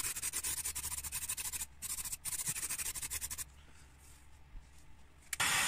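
Aerosol can of primer spraying onto a welded car sill: a rapidly fluttering hiss with two short breaks, stopping about two-thirds of the way in. Near the end a heat gun switches on with a steady blowing noise.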